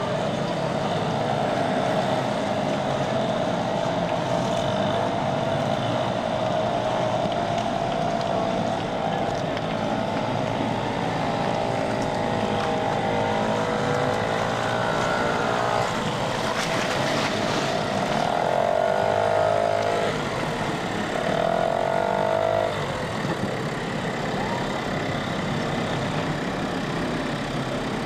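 Small motors of bumper boats running close by, their pitch wavering and rising and falling several times as the throttle changes.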